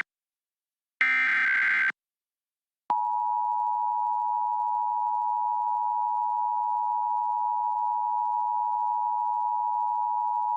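Emergency Alert System broadcast. It ends its header with a one-second burst of data tones, followed by about a second of silence. About three seconds in, the EAS two-tone attention signal starts: a steady dual-tone alarm held unchanged for about eight seconds, announcing a required monthly test.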